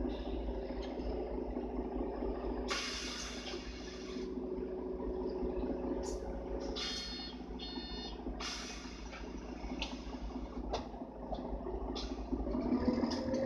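Interior of a Mercedes-Benz O530 Citaro bus with its OM457 hLA straight-six diesel idling in a low rumble, broken by two loud bursts of compressed-air hiss with two short electronic beeps between them. Near the end the engine note rises and grows louder as the bus moves off.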